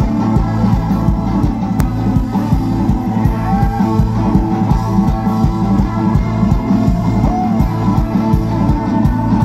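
A live band playing an instrumental passage with a heavy, steady bass underneath.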